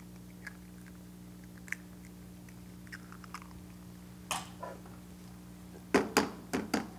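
Eggshells being cracked and broken open, with small clicks and taps of shell against the pan. A quick run of four sharp cracks near the end is the loudest.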